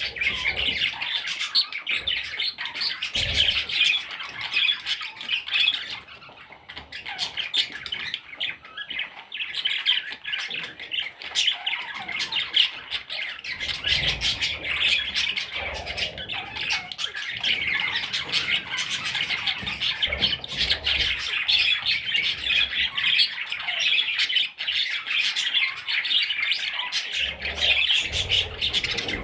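Many budgerigars squawking and chirping at once, a dense unbroken chatter of rapid short calls.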